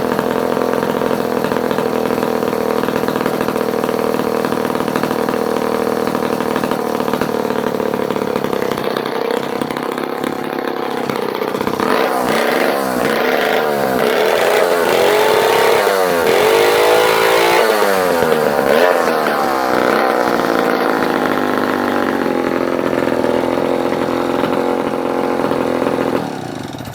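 Vintage Clinton D65 Super two-stroke chainsaw engine running steadily. Midway its throttle is revved up and down several times, then it settles back. The engine stops shortly before the end.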